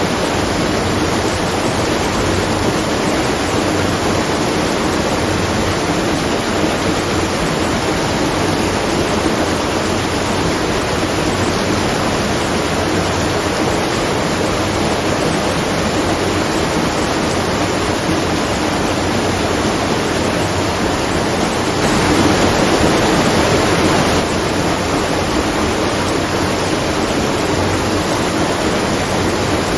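Water rushing and splashing at a watermill, a steady noise with a slightly louder stretch about 22 seconds in that lasts a couple of seconds.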